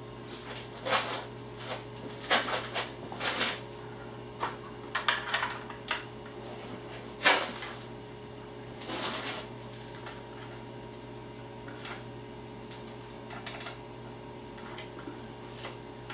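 Irregular clicks, knocks and scrapes of metal parts handled against a motorcycle's rear fender as a backrest upright and carriage bolts are fitted. The handling is busiest in the first nine seconds and sparser after, over a steady low hum.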